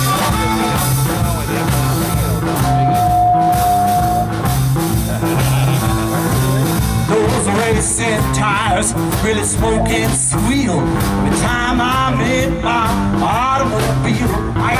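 Live blues-rock band playing an instrumental passage with electric guitar, bass and drums, and an amplified harmonica played cupped against the vocal microphone, its notes bending and wavering in the second half.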